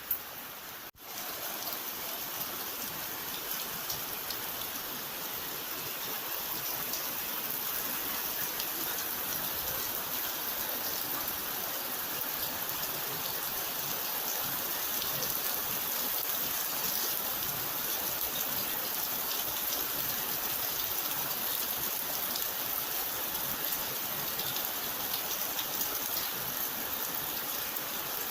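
Steady rain falling, a dense even hiss of drops. There is a momentary break in the sound about a second in.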